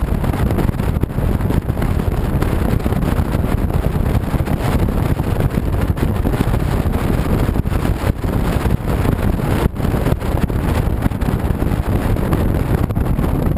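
Wind rushing and buffeting over the microphone of a camera mounted on a motorcycle riding at road speed, with the motorcycle's road noise underneath.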